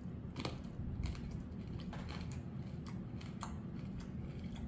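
Irregular crisp crunches and clicks of someone chewing candied fruit with a hard sugar-candy shell, over a low steady hum.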